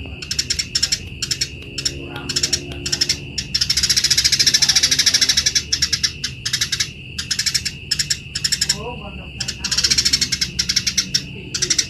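Eurasian tree sparrows giving harsh, rapid chattering calls of the kind heard when they fight: quick trains of sharp chirps, with two longer runs of dense buzzy chatter, over a steady high tone.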